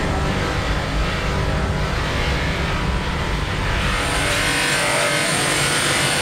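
Bench-mounted polishing motor running steadily with a foam buffing wheel, a low hum under the rubbing of the wheel against a foggy plastic headlight lens being polished clear. About four seconds in the low hum drops back and a brighter hiss takes over.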